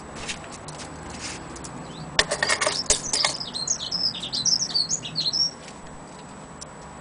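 A few sharp clicks and a cluster of louder knocks and rattles, followed by a burst of rapid high bird chirps that stops about five and a half seconds in.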